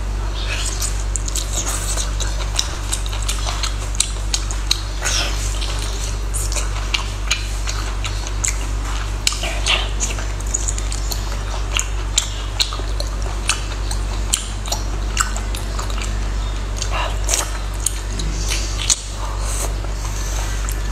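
Wet chewing and mouth smacks from eating whole cooked octopus heads: many short, sharp clicks over a steady low hum.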